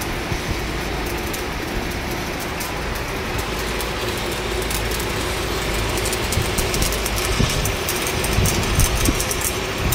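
Stick (MMA) welding arc burning steadily, hissing and crackling, over a steady hum; the crackle grows busier in the second half.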